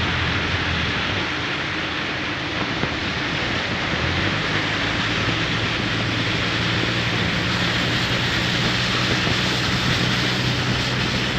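Steady rain falling, with a low mechanical hum underneath that shifts slightly in pitch about four seconds in.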